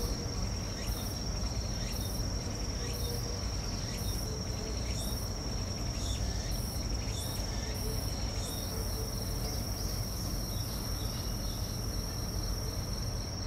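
Insects calling: one steady high-pitched drone, with a second insect's pulsed call repeating a little more than once a second that runs together into a continuous high buzz a little past halfway, over a low background rumble.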